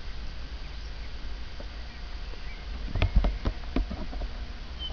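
Wind rumbling on the microphone of a camera stuck to a handheld RC transmitter, with a short cluster of clicks and knocks about three seconds in.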